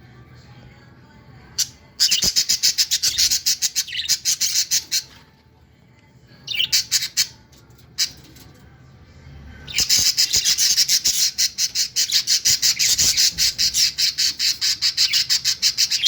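Budgerigar chicks calling in rapid runs of harsh, evenly spaced squawks, many a second: a three-second run about two seconds in, a short burst midway, and a long unbroken run over the last six seconds.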